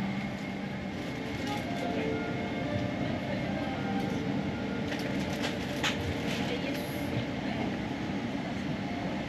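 Steady vehicle rumble with faint voices in the background and a few light clicks about five to six seconds in.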